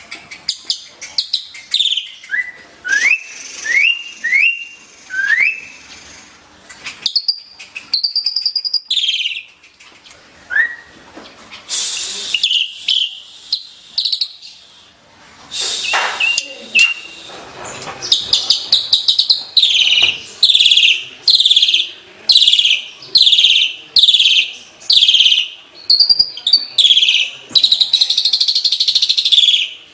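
Asian pied starling (jalak suren) singing. First comes a run of short rising whistles, then, after scattered calls, a long series of loud, harsh falling notes repeated at about one and a half per second.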